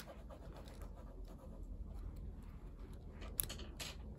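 Faint rustling and scraping as a small die-cast Majorette Porsche 911 GT3 RS toy car is handled by the fingers and moved on carpet, with a couple of short clicks near the end.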